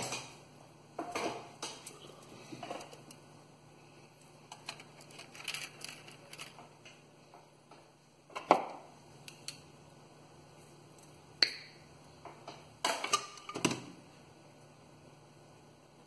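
Irregular clicks, knocks and clinks of hand tools and bonsai wire being picked up, handled and set down on a tabletop. The sharpest knock comes about halfway through, another a few seconds later, and a short flurry near the end.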